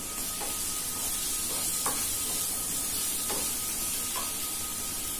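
Chopped green beans, capsicum and onion sizzling in hot mustard oil in a frying pan, with a steady hiss, as a wooden spatula stirs them, scraping across the pan a few times.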